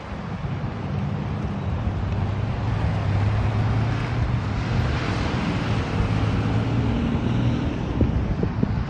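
Road traffic going by on a multi-lane road: engine hum and tyre noise, swelling as a vehicle passes close about five seconds in.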